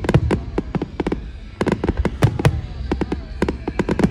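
Aerial fireworks display: many sharp bangs and crackles of shells bursting in quick succession, thinning out briefly about a second in before picking up again.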